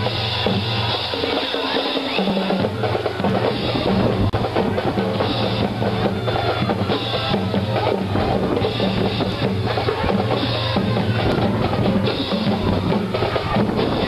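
Parade music passing by: drums playing a steady beat over a low bass line.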